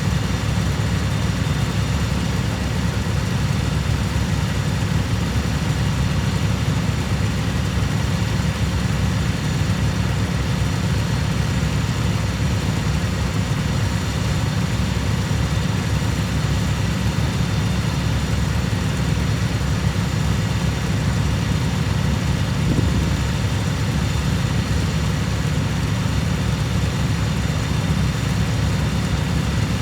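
Cub Cadet lawn tractor engine running at a steady, unchanging speed.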